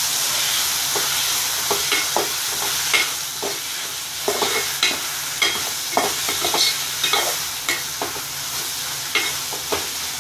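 Chopped vegetables frying in oil with a steady sizzle in a metal pot, while a metal ladle stirs them, scraping and clinking against the pot at irregular moments. The vegetables are being sautéed in oil alone, with no water added.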